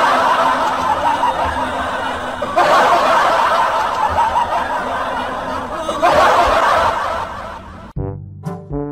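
Crowd laughter from a laugh track, swelling in three waves about three seconds apart. It cuts off abruptly near the end, and a short stretch of music with sharp clicks starts.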